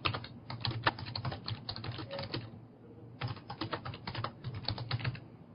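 Typing on a computer keyboard in quick runs of keystrokes, with a short pause a little past halfway.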